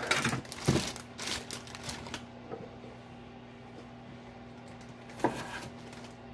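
Plastic zip-top bag of small red potatoes crinkling as it is handled. There are clusters of rustles over the first two seconds and one more about five seconds in, over a faint steady hum.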